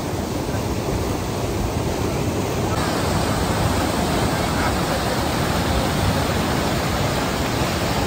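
Fast-flowing mountain stream rushing over rocks, a steady loud rush of water that turns brighter and hissier a few seconds in.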